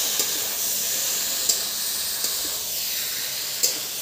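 Steady sizzling hiss of paneer, sliced onion and capsicum stir-frying in a steel kadai, with a metal spatula clinking against the pan four times.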